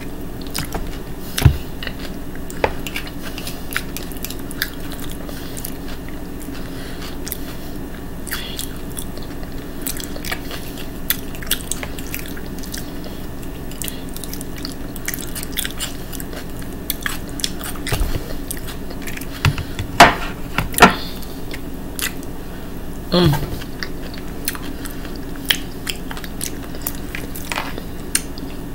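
A person chewing and smacking while eating potato salad from a fork, with many small wet mouth clicks throughout. A few louder knocks come about two-thirds of the way through.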